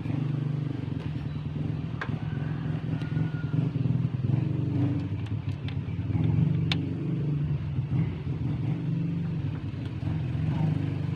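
Engine idling steadily in the engine bay of the owner-type jeep under repair, with a few faint clicks.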